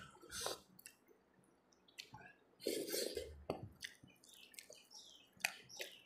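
Fingers squishing fried rice and chicken curry together on a plate, then eating it by hand, with short wet mouth and chewing sounds.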